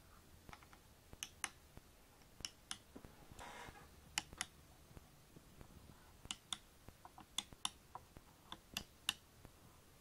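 Keys of a 4x4 keypad clicking as they are pressed and released: about seven presses at uneven intervals, several heard as a close pair of sharp clicks. A short rustle comes about three seconds in.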